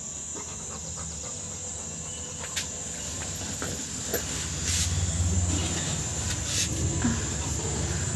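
A Rottweiler breathing and sniffing close to the microphone, with two short puffs of breath past the middle. A few soft clicks are heard, and rumble from the phone being handled grows louder about halfway through.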